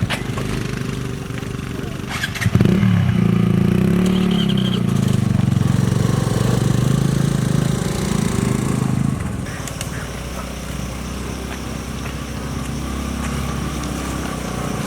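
Scooter engine running under way, its pitch rising and falling with the throttle, then steadier and lower from about nine seconds in. A single knock sounds about two seconds in.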